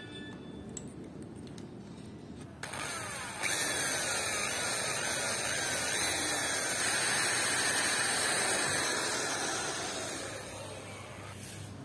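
Electric drill with a keyed chuck starting up about three seconds in and boring a hole into pine with a thin bit. Its pitch drops again and again under load, and it winds down near the end.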